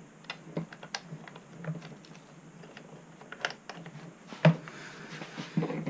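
Light, irregular clicks and taps of metal parts being handled, with one louder knock about four and a half seconds in: the axle and hub hardware of a Onewheel Pint being fitted back between its rails.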